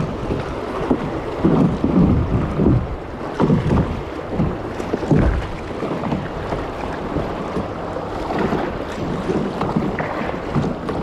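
Water splashing and lapping around a kayak, with wind rumbling in irregular gusts on the microphone.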